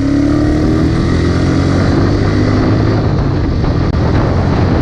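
Single-cylinder engine of a Suzuki Gixxer SF motorcycle running under way, its revs rising over the first few seconds, with wind noise on the action camera's microphone.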